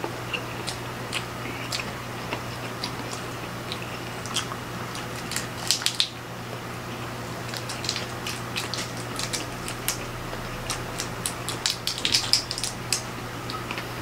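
Close-up eating sounds: chewing, with many sharp crackles and clicks of grilled shrimp shells being cracked and peeled by hand. The clicks bunch loudest about six seconds in and again around twelve seconds.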